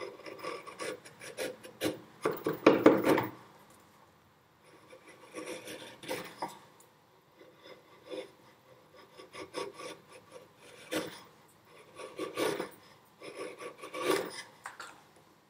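A sharp chisel paring chamfers on the end of a wooden block by hand, taking thin shavings: a series of crisp scraping, slicing strokes in short bursts with brief pauses. The loudest strokes come about three seconds in.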